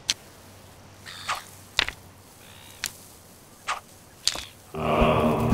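Cartoon sound effects of thrown stones: about six short, sharp whooshes and impacts spaced irregularly, as stones fly through the air and land in sand. Music with held notes comes in near the end.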